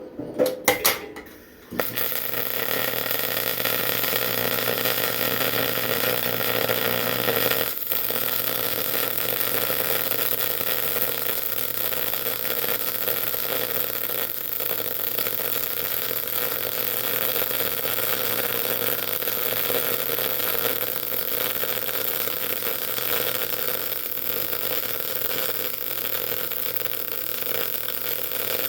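MIG welding arc on 3/8-inch steel flat bar. A few short sputters as the arc strikes, then a steady hiss from about two seconds in, broken once for an instant about eight seconds in.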